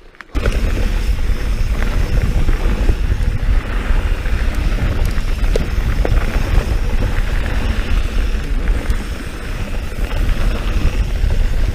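Mountain bike riding over a dirt and rock trail: wind noise buffets the on-bike camera microphone over the rumble of the tyres, with a few sharp clicks and knocks from the bike rattling over rough ground. The noise starts abruptly just after the start.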